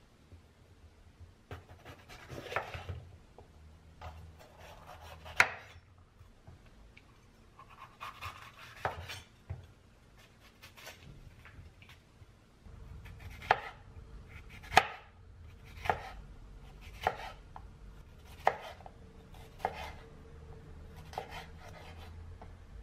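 Chef's knife cutting a red bell pepper on a wooden cutting board. Scattered knocks come first as the pepper is cut open and seeded, then the blade strikes the board steadily about once a second as it slices the pepper into strips.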